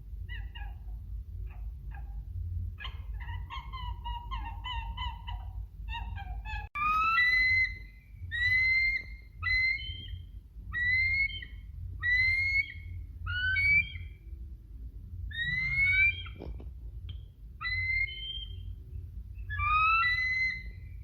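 A turkey gobbling in rapid rattling notes, then, after a cut about seven seconds in, geese honking: loud, rising calls repeated roughly once a second.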